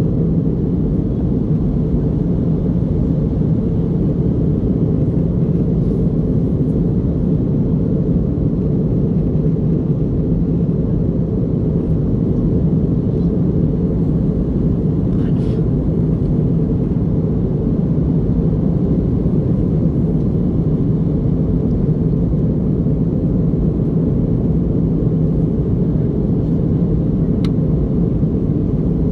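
Steady cabin noise inside an Airbus A321neo in flight, the even rumble of airflow and its CFM LEAP-1A engines heard from a window seat.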